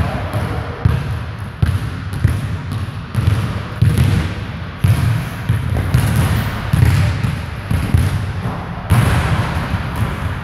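Basketballs being dribbled and bounced on a hardwood court in a large gym: unevenly spaced low thuds, about one a second.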